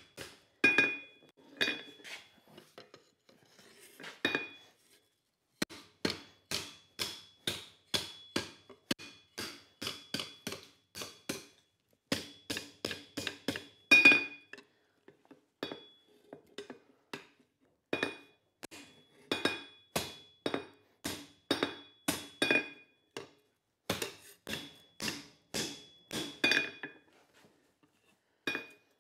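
Hand hammer striking a red-hot leaf spring bar on an anvil, folding it over, about three blows a second in runs with brief pauses. Many blows leave a clear, high metallic ring from the anvil.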